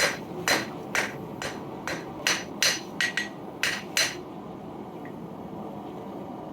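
Blacksmith's hammer striking metal on an anvil to forge a square taper. There are about ten blows, roughly two a second, each with a bright ring after it, and they stop about four seconds in.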